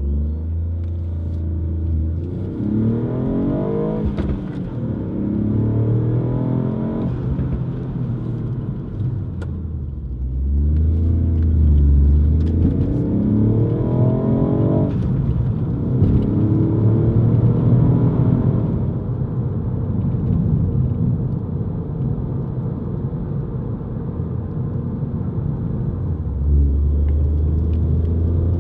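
Ford Fiesta ST Mk8's turbocharged 1.5-litre three-cylinder engine, heard from inside the cabin through a Cobra Sport 3-inch stainless-steel GPF-back sport exhaust. Under acceleration the revs climb, then drop at each gear change, three times. Between pulls and again near the end it settles into a deep steady drone.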